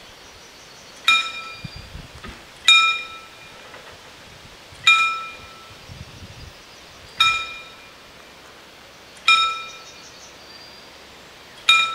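Level crossing warning bell striking single strokes about every two seconds, six times, each stroke ringing out briefly. It signals the crossing closing as the barriers come down for an approaching train.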